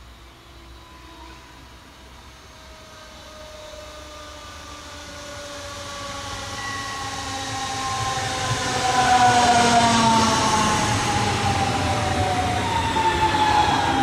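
DB Class 426 electric multiple unit approaching and passing close by, growing louder to a peak about nine seconds in. Its electric traction drive gives several whining tones that slowly fall in pitch, the whine behind the class's nickname "Quietschie", over the rumble of its wheels on the rails.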